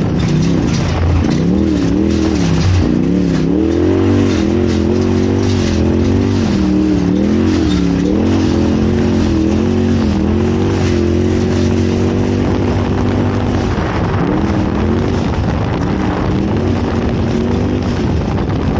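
Off-road race vehicle's engine running hard, its pitch rising and falling repeatedly as the throttle changes, with frequent knocks and rattles throughout.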